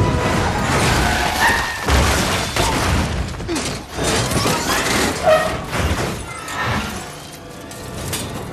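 Action-film chase sound effects: a heavy steel vault dragged on chains, scraping and grinding along the road, with several heavy crashes, shattering debris and short metallic screeches. The level eases off about seven seconds in.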